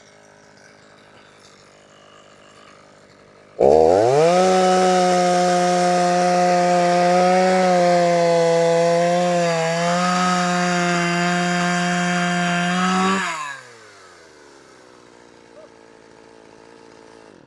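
Poulan 330Pro two-stroke chainsaw idling quietly, then opened up to full throttle about four seconds in. It holds at high revs for about nine seconds, its pitch sagging a little midway, before dropping back down to idle.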